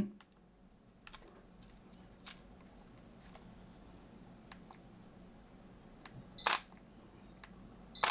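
Sony Alpha 6400 camera taking two photos about a second and a half apart, each a short shutter click with a brief high beep, after a few faint button and handling clicks.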